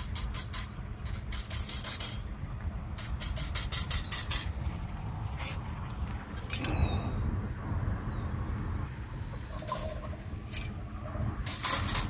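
Galvanised wire cage trap rattling and clinking as it is handled, in several short bursts of rapid clicks, over a steady low rumble of wind on the microphone.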